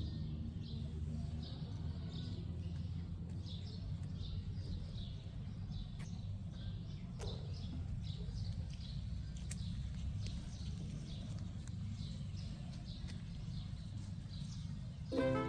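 A bird chirping over and over, about two short high chirps a second, over a steady low rumble, with a few faint clicks. Music comes in just before the end.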